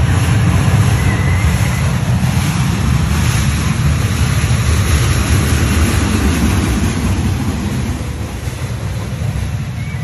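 Wind buffeting the microphone: a loud, steady low rumble with a hiss above it.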